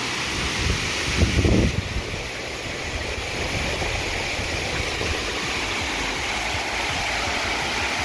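Waterfall rushing steadily: a constant, even noise of falling water, with a short louder patch of low rumbling about a second in.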